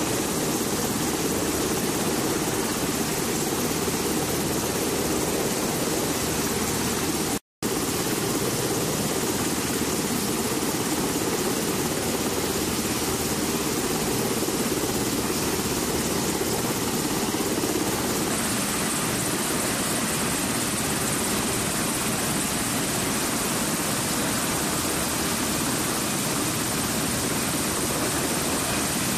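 MH-60S Sea Hawk helicopter's turbine engines and main rotor running steadily on a ship's flight deck, heard as a dense, even din. It cuts out for a split second about seven seconds in, and a higher hiss joins partway through.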